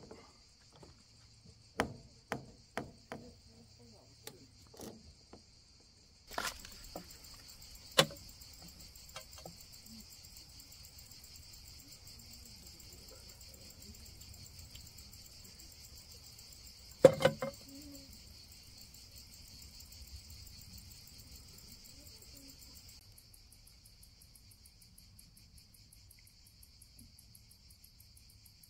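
A steady, high insect chorus sets in about six seconds in and runs on. Before it come a string of sharp clicks and knocks from handling the stiff black solar-heater pipe and its fittings, and two more knocks follow, the loudest about seventeen seconds in.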